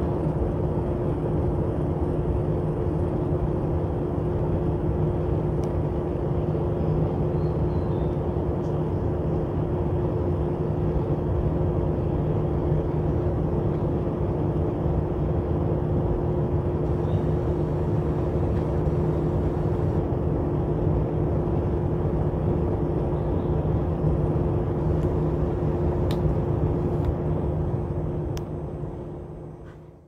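Small 3 V DC motor spinning a plastic fan in a homemade toy air conditioner, switched on with a steady whirring hum that holds two even tones, then winding down and fading out near the end.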